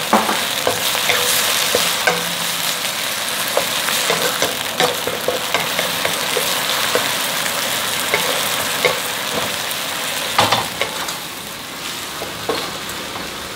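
Korean fish cake and onion stir-frying in a pan, sizzling steadily as the sauce reduces, with frequent clicks and scrapes of the spatula against the pan.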